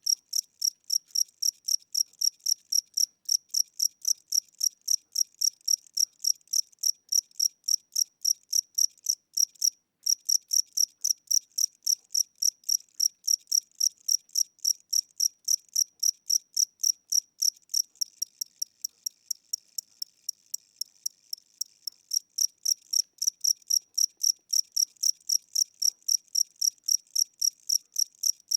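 A single cricket chirping in a slow, even rhythm, about three to four chirps a second, with one brief pause about ten seconds in. The recordist takes the slow tempo for a tired or aging cricket whose wings are getting weak.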